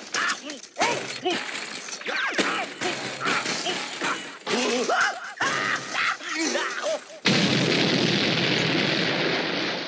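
Cartoon explosion sound effects: a quick run of short sounds with sliding pitches and crashes, then a loud, steady explosion noise starting about seven seconds in and fading near the end.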